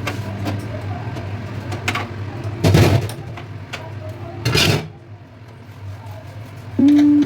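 Kitchen cooking sounds: a steady low hum with two short, noisy bursts about two seconds apart, near the middle.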